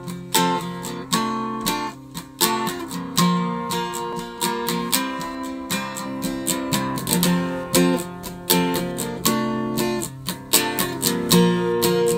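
Acoustic guitar strumming chords in a steady rhythm, with no voice.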